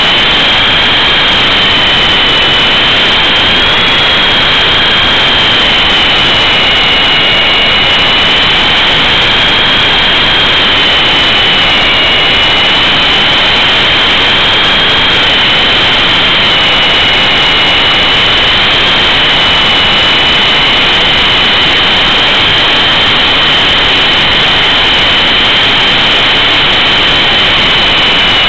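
Onboard sound of an E-sky Big Lama coaxial electric RC helicopter in flight: a high motor and gear whine that wavers slightly in pitch, over a loud steady rush of rotor wash on the camera.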